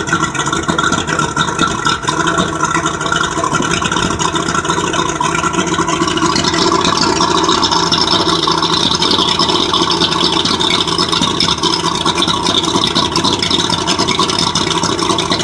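Carbureted 200 hp Mariner V6 two-stroke outboard running steadily after a carburetor rebuild. About six seconds in it grows slightly louder and brighter and holds there.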